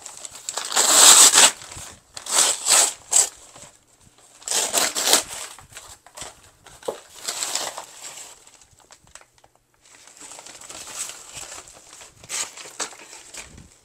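Brown kraft paper bags and packing paper being crumpled and pulled off potted plants, in several irregular bursts of rustling, the loudest about a second in.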